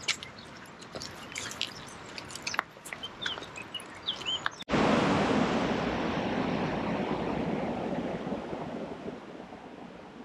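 Footsteps and a dog's claws clicking on bare rock. About halfway through, a sudden cut brings in the loud, steady rush of river rapids, which slowly fades away.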